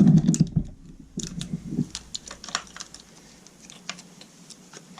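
Irregular light clicks and taps of the opened plastic diaphragm pump's housing and parts being handled and pried at, with a duller knock right at the start.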